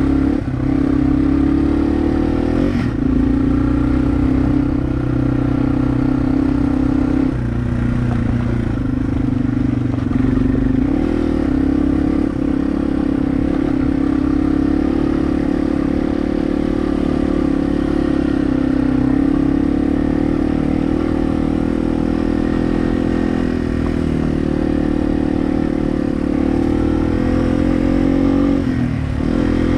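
Yamaha dirt bike engine running steadily at moderate throttle while riding up a gravel trail. Its pitch dips briefly about three seconds in and again near the end.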